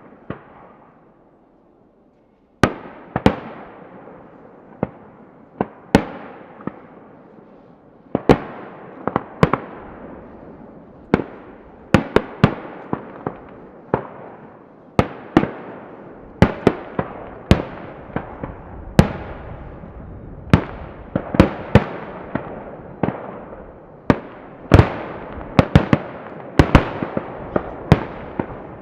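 Aerial firework shells bursting in the distance, each sharp report followed by a fading echo. After a short lull at the start, the bursts come more and more often, several close together near the end, as the display builds toward its finale.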